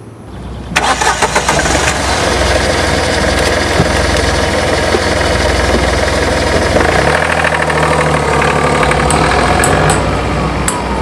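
A car engine starts about a second in and keeps running steadily.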